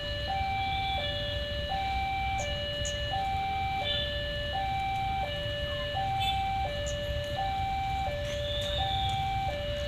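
Railway level-crossing warning alarm sounding a steady two-tone hi-lo signal, each tone held about 0.7 s, warning that a train is approaching the crossing. Low wind or road rumble underneath.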